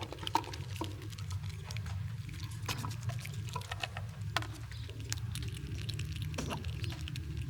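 Squirrels chewing and gnawing nuts close to the microphone: irregular sharp clicks and cracks, several a second, over a steady low hum.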